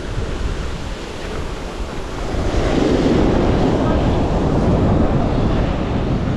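Surf washing on the beach, with wind buffeting the microphone; the wash swells louder about two and a half seconds in.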